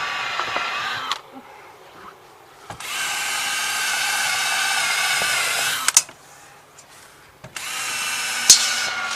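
Power drill running in three long stretches of a steady whine, with short pauses and a few clicks between them.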